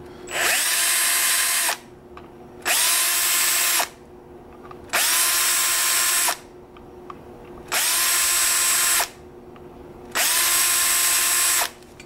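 Handheld electric drill running in five short bursts, each spinning up with a rising whine to a steady pitch, as its bit chamfers the burred edges of the pin holes in a milled-open brass padlock body.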